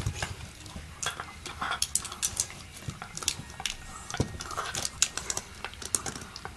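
A dog biting and pawing at a small plastic handheld fan: irregular clicks, taps and small rattles of teeth and paws on plastic, several a second.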